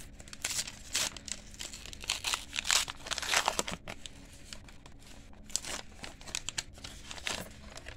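Foil wrapper of a 1991 Upper Deck baseball card pack crinkling and tearing as it is ripped open by hand: a run of sharp crackles, busiest in the first half and sparser after.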